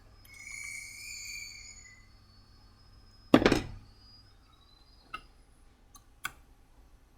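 Hardware being handled while a lift leg is bolted onto its mounting block: a soft scrape for the first couple of seconds, then one sharp clack a little past three seconds in, the loudest sound, followed by three light clicks.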